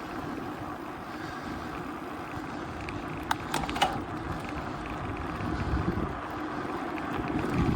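A gravel bike riding along: tyre rumble and wind buffeting the microphone, with a few brief clicks or rattles about three and a half seconds in.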